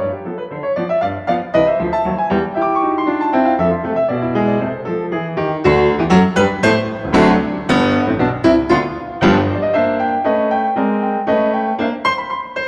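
Background piano music, a run of quick notes that grows fuller and louder from about six seconds in.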